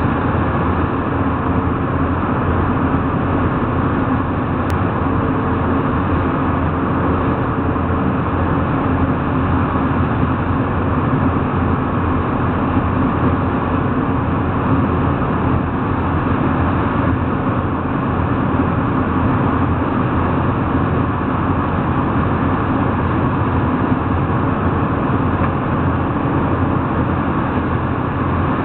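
A speedboat's outboard motors running steadily at speed, a loud even drone mixed with the rush of the churning wake.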